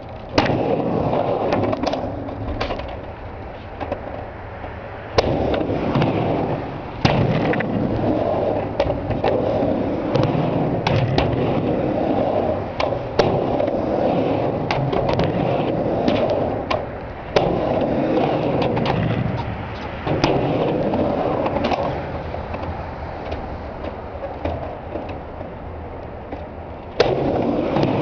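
Skateboard riding back and forth on a mini ramp: steady wheel noise that swells and fades with each pass, broken by many sharp clacks of the trucks and tail hitting the coping during grinds and stalls.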